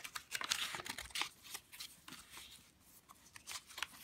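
Coffee-stained, distressed paper pages of a handmade junk journal being turned and handled: paper rustling with small taps and clicks, busiest in the first second and quieter in the middle.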